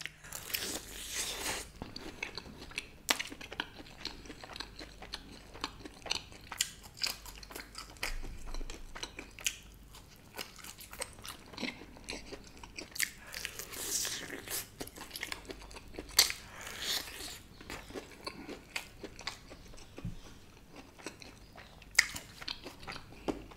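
Close-miked biting and chewing of KFC Hot & Crispy fried chicken: the crisp coating crunches in many sharp crackles, with a few longer crunchy bites, between quieter chewing.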